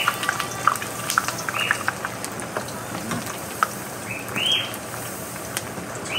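Thin plantain slices deep-frying in hot oil: a steady sizzle with many sharp pops and crackles, and clinks of the metal spoon stirring them in the pan. A few short squeaky sounds come through over the sizzle, one about a second and a half in and a louder one near the middle.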